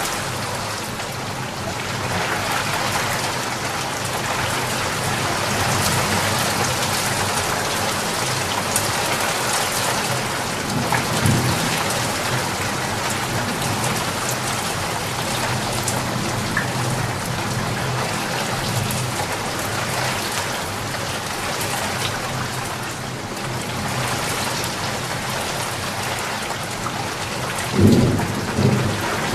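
Steady heavy rain falling and pattering on surfaces, with thunder rumbling low about a third of the way in and louder near the end.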